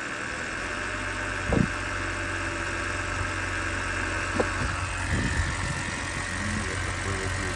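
BMW N52 straight-six engine idling cold, with a few sharp knocks from under the hood about one and a half, four and a half and five seconds in: the cold-engine knock and crackle being shown.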